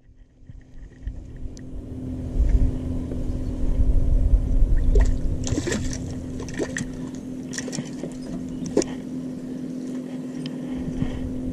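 A hooked crappie splashing and thrashing at the water's surface as it is reeled in, with several sharp splashes in the middle. Underneath is a steady low hum and a low rumble.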